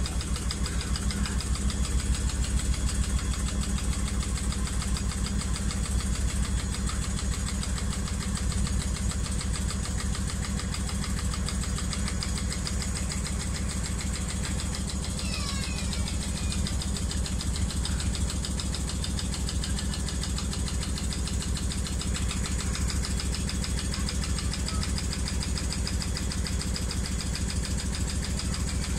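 Hotpoint AQXL105 washing machine spinning with a badly unbalanced load, the cabinet shaking and knocking in a rapid, steady rhythm.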